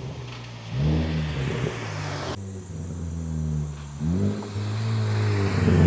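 Big-turbo Ford Focus ST engine accelerating under load. Its pitch climbs, drops at a gear change or lift, then climbs again and grows louder toward the end.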